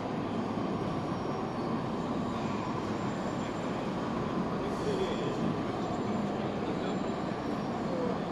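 5-inch-gauge model diesel locomotive and its train of wagons running along a raised track, wheels giving a steady rolling rumble over the rails, against the general noise of a busy hall.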